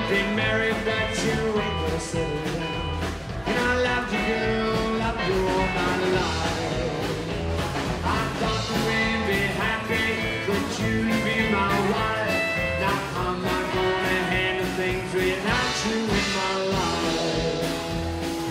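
Live rockabilly band playing an up-tempo number: electric and acoustic guitars, upright bass and a drum kit keeping a steady beat.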